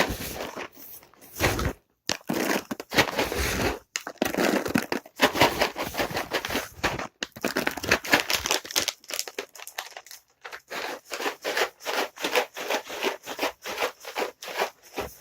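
Cat treats being shaken in their package: a dense rattle of hard little pieces, in uneven bursts at first, then shaken quickly and evenly at about four to five shakes a second from about two-thirds of the way in.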